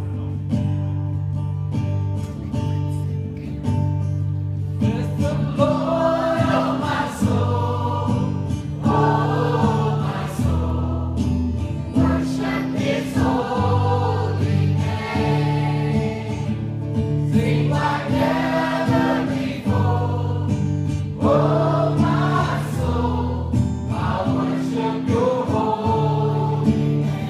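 Live gospel song: strummed acoustic guitar, joined about five seconds in by a male lead singer and a church choir singing in phrases.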